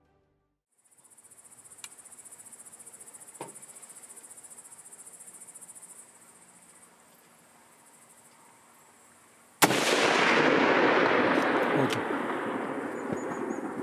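A single hunting-rifle shot fired at a red stag, sudden and loud, about ten seconds in, followed by a long echo dying away over several seconds. Before the shot, insects chirp in a steady high trill.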